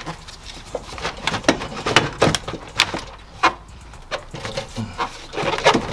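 Hand tools and metal parts clicking, clanking and knocking at uneven intervals while bolts are undone under a car dashboard, with a cluster of sharp taps near the end.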